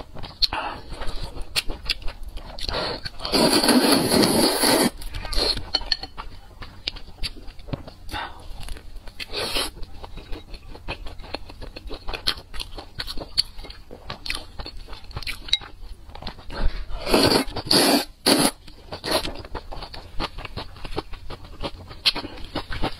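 Close-miked mukbang eating sounds: noodles from spicy noodle soup slurped in a long loud draw about three seconds in, then wet chewing and lip smacks, with a few more loud slurps or bites later on.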